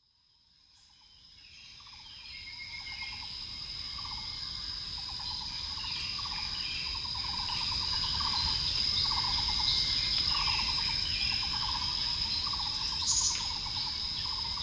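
Dawn nature ambience fading in from silence over the first few seconds. It holds a steady high insect buzz, a lower insect trill repeating a little more often than once a second, and scattered bird chirps.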